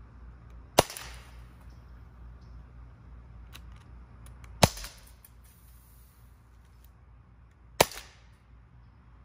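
Heckler & Koch VP9 CO2 blowback BB air pistol fired three times, one sharp crack per shot, the first about a second in and the others about four and three seconds later.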